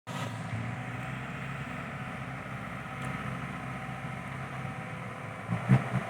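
Heavy diesel engine of an excavator or dump truck running steadily at low revs, with a loud knock about five and a half seconds in.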